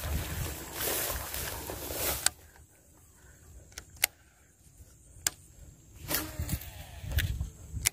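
Wind buffeting the microphone and grass rustling, which cut off abruptly after about two seconds. Then near quiet broken by a few sharp clicks, with another short spell of wind noise near the end.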